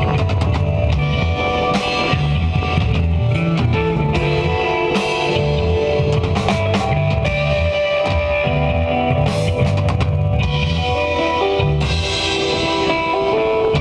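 Live instrumental desert rock jam: electric guitar holding long notes over bass guitar and a drum kit, with cymbal crashes every few seconds.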